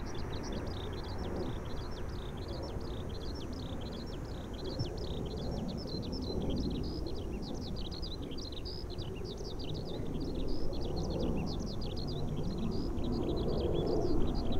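Distant jet roar of a Boeing 767 climbing overhead, a low rumble that swells and eases several times and is strongest near the end. Many high chirps run on steadily above it.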